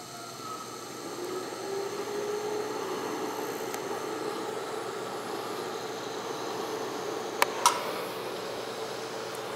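Steady mechanical hum and hiss from shop equipment, with a faint tone that rises a little in pitch about a second in and then holds. Near the end come two sharp clicks about a quarter second apart as the auto-darkening welding helmet is flipped up.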